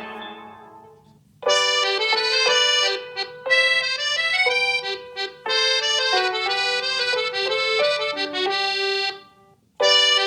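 Huawei P50 Pro ringtones. One fades out at the start. A new ringtone, a melody of short bright notes, starts about a second and a half in and plays until about nine seconds. After a brief gap, the next tune begins near the end.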